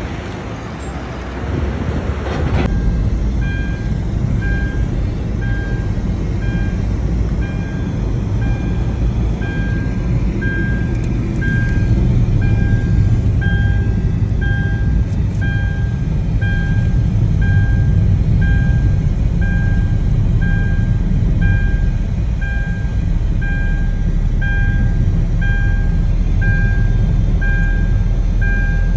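Inside a moving car's cabin: a loud, steady low rumble of engine and road noise. Over it, a short high beep repeats evenly about every three-quarters of a second. For the first couple of seconds there is rougher outdoor traffic noise instead.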